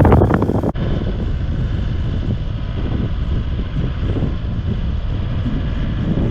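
A loud gust of wind on the microphone at first, then a vehicle engine running steadily with a low rumble.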